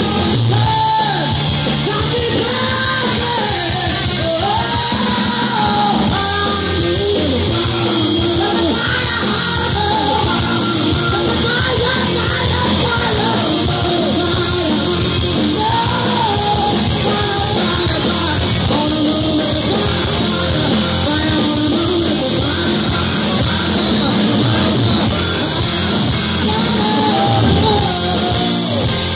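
Live rock band playing: a female lead singer belting over electric guitar, bass and drums, loud and continuous.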